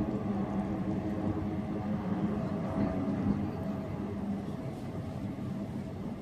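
Steady drone of a twin-engine propeller seaplane passing over the water, a low hum with a few held tones that slowly fades.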